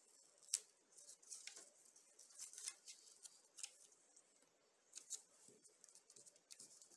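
Faint handling sounds: soft rustles of paper and a scattering of light ticks and taps as fingers press paper pieces onto a wooden craft stick.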